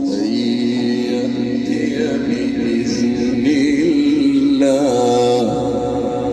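A man's voice reciting the Quran in a long, melodic drawn-out line, held notes wavering slightly, stepping up to a higher pitch near the end.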